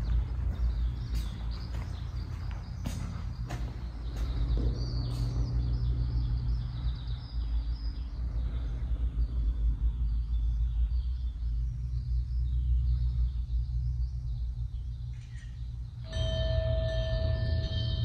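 Quiet background music over a steady low drone. About two seconds before the end a sustained ringing tone enters suddenly.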